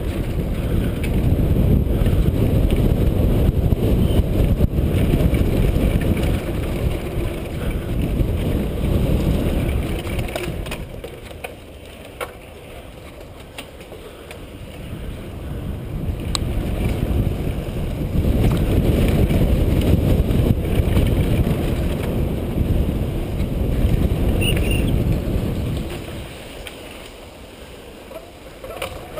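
Wind buffeting the microphone of a camera on a moving mountain bike, with the rumble and rattle of the bike riding over a dirt trail. The rumble drops away about ten seconds in, returns a few seconds later, and drops again near the end.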